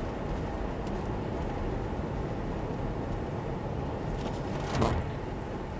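Steady engine and tyre noise of a car driving on a snow-covered road, heard from inside the cabin, with a brief louder bump or rustle about three-quarters of the way through.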